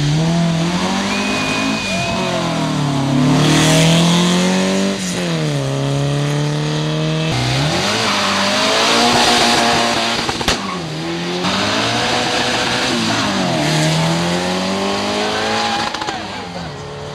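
Drag-racing cars, among them a turbocharged VW Beetle, launching and accelerating hard. The engines rev up through the gears, their pitch climbing and falling back again and again as they shift.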